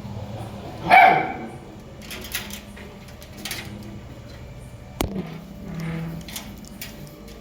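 A dog barks once, loudly, about a second in, followed by a few faint clicks and a sharp tick around five seconds in.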